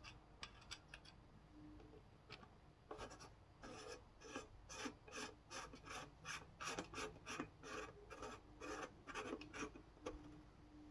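Faint rasping of a threaded bearing retainer ring being turned by hand into a motorcycle wheel hub, metal threads scraping, coated with blue Loctite. It comes as a run of short strokes, two or three a second, starting about three seconds in.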